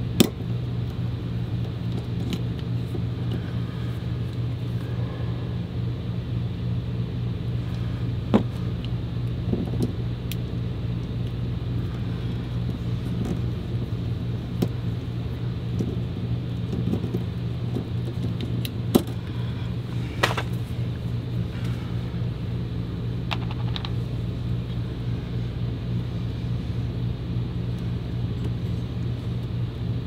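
Plastic punch-down tool seating the wires of a Cat 6 cable into an Ethernet keystone jack, giving about half a dozen sharp clicks spread apart, over a steady low hum.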